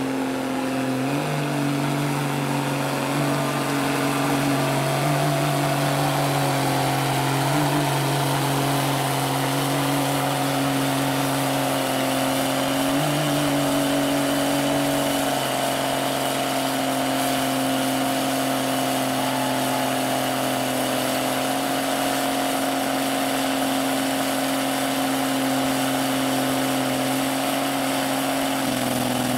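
Lifted mud truck's engine held at high, steady revs as the truck churns through a deep mud pit. The pitch shifts slightly a few times without ever dropping off.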